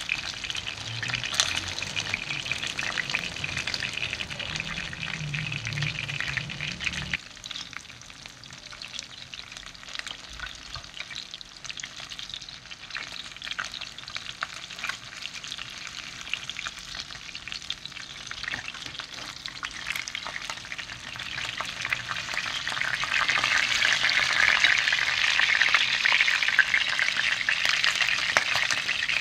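Whole mullet frying in hot oil in a pan: a steady sizzle and crackle of spitting fat, with scrapes and clicks of a spatula and forks turning the fish. The sizzle drops quieter about seven seconds in and grows louder again near the end.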